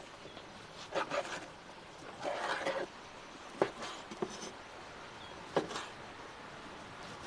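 Large curved knife cutting raw meat on a wooden board: two longer scraping cuts, then sharp knocks of the blade against the board, three of them a second or two apart.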